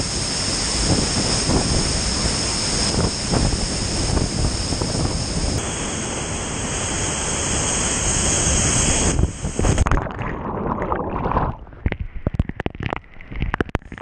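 Loud, steady roar of a waterfall and whitewater right at a kayak-mounted action camera. About ten seconds in, as the kayak lands below the falls, the roar cuts out suddenly and gives way to muffled, uneven splashes and knocks.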